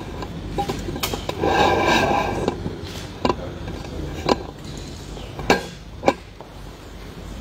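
Hall ambience with a brief rustle about one and a half seconds in and about five separate sharp clicks or knocks spread through the rest.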